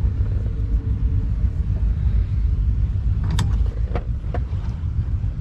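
Steady low rumble of a wake boat's inboard V-drive engine running as the boat pulls away from the dock, with a few sharp knocks about three to four seconds in.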